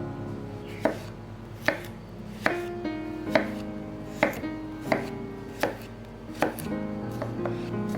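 Knife chopping on a cutting board in slow, even strokes, about eight cuts roughly a second apart, over soft background music.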